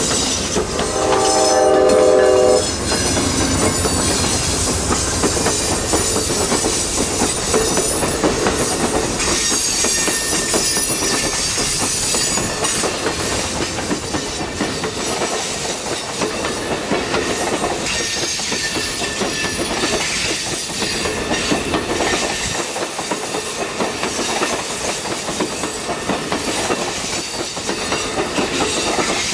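Amtrak passenger train passing close by. A diesel locomotive's horn sounds about a second in and lasts roughly two seconds. Then comes the steady rumble and clickety-clack of bi-level passenger cars rolling over the rails, with high-pitched wheel squeal for a few seconds around ten seconds in.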